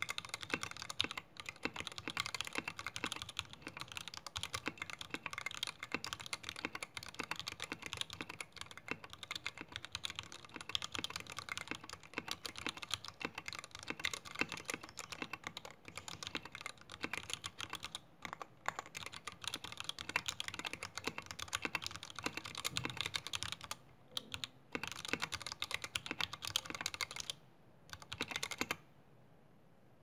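A steady stream of keystrokes typed on a 60% mechanical keyboard with stock Matrix Lab FFF linear switches, thick PBT keycaps, a 1.5 mm brass plate and a solid aluminium case. The typing breaks off briefly twice near the end, then stops about a second before the end.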